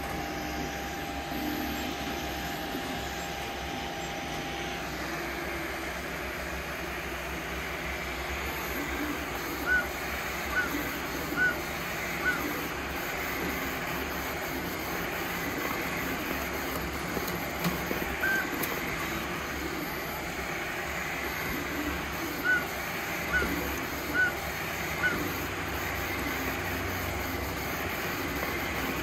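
Anycubic Kobra 2 Max 3D printer running a print: a steady whir of fans and stepper motors. About five seconds in a faint steady tone drops out and the whir turns brighter. Short high chirps come in two runs of four, evenly spaced, and once on their own in between.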